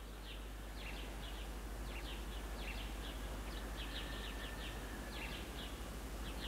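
Small birds chirping in the background, short high chirps coming in quick little groups, over a faint steady low hum.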